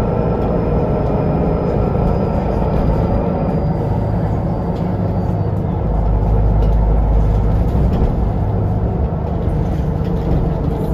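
Cabin noise inside a Solaris Urbino 18 articulated city bus: the steady low rumble of the engine and running gear, heavier for about two seconds some six seconds in.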